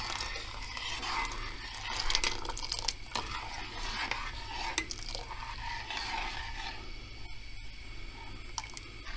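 Metal spoon stirring thick, simmering rice pudding in a stainless steel pot while a milk and rice-flour slurry is poured in, with a steady wet churning and small clinks of the spoon against the pot.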